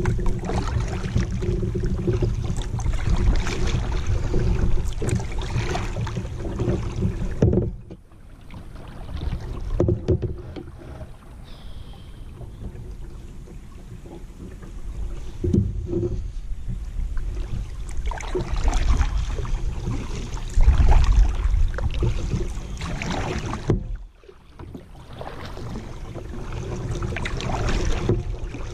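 Water swishing and splashing around a kayak as it moves down a swift river, over a low rumble of wind on the microphone. The sound falls away abruptly twice, about eight seconds in and again near twenty-four seconds, then builds back up.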